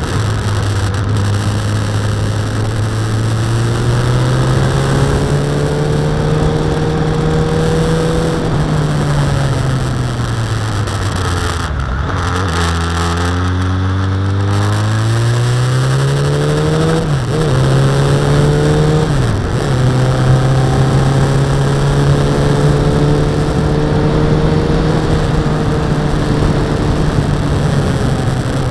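Suzuki Bandit's inline-four engine on a ride with steady wind rush on the microphone. The engine note holds, sinks low about halfway through as the bike slows through a bend, then climbs again with two quick dips in pitch, gear changes, before settling to a steady cruise.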